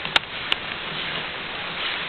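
A steady noisy background with two sharp clicks near the start, about a third of a second apart.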